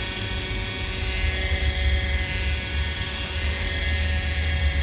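Hirobo Sceadu RC model helicopter running on the water with its rotor spinning: a steady whine over a deep rumble.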